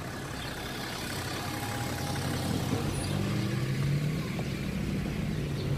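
Car engine and road noise heard from inside the cabin while driving along a city street. The engine hum climbs slightly in pitch partway through.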